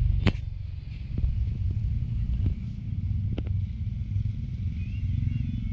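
Low, steady rumble of motor traffic from the street, with a few sharp clicks over it.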